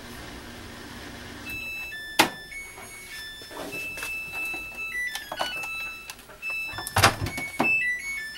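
Samsung WD136 front-loading washer-dryer finishing its wash: a steady low hum, then a short tune of electronic beeps at changing pitches that signals the end of the cycle. Sharp clicks come through the beeps, the loudest about seven seconds in as the door latch releases and the door is opened.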